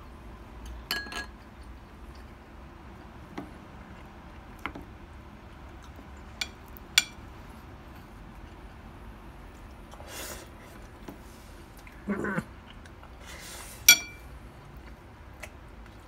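A black spoon clinking and scraping against a white ceramic plate as rice is scooped up: a handful of separate sharp clinks with short ringing, the loudest a little before the end, with soft scrapes between them and a brief low sound about twelve seconds in.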